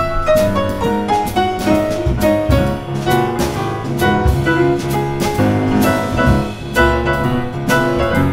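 Jazz piano solo on an acoustic grand piano: a run of single notes and chords over a walking upright bass, with drums keeping time underneath.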